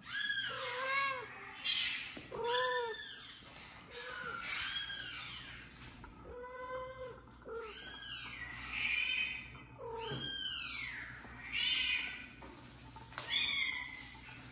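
Kitten meowing over and over: a dozen or so high-pitched meows, each rising then falling in pitch, about one a second.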